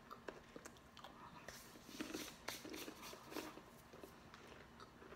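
Faint crunching of a hard, twice-baked biscotti being bitten and chewed, with a run of crisp crunches about midway.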